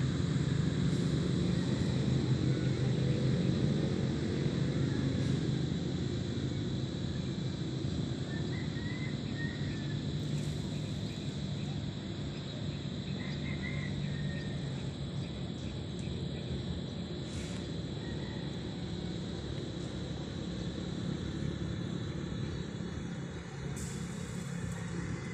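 Steady low rumble of road traffic crossing the concrete bridge overhead, loudest in the first few seconds and slowly easing off.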